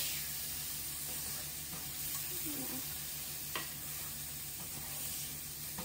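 Curry with onion and bell pepper sizzling softly in a nonstick frying pan while a plastic spatula stirs it, with a light tap of the spatula on the pan about three and a half seconds in.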